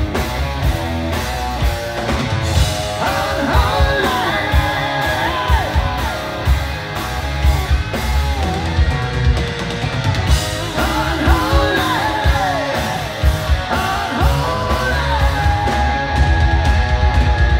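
Live hard rock band playing loud: distorted electric guitars, bass guitar and drums, with a sliding, bending melodic line over the top at times. About sixteen seconds in, the music gets louder, with a fast, even drum pulse.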